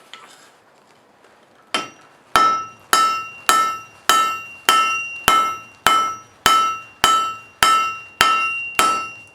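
Hand hammer striking hot steel on an anvil in a steady rhythm of under two blows a second, each blow leaving a ringing metallic tone. The hammering starts after a quiet second and a half.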